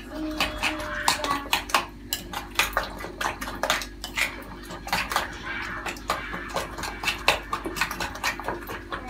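A spoon clinking against a glass mixing bowl in quick, irregular strokes while stirring oats, raw eggs and raisins together.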